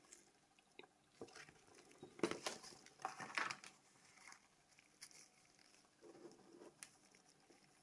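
Faint handling noises: paper rustling and light plastic clicks as gloved hands handle a printed phone manual and an LG KG800 Chocolate phone with its battery cover off. The sounds come in short scattered bunches, busiest a couple of seconds in.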